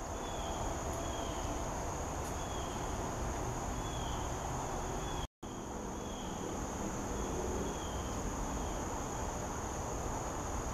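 Steady high-pitched drone of crickets in the woods, with short falling chirps repeating every half second or so, over a low rumble. The sound drops out briefly about halfway through.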